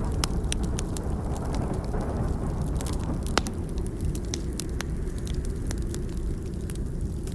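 Burning log crackling with irregular sharp pops, one louder pop about three and a half seconds in, over a steady low rumble.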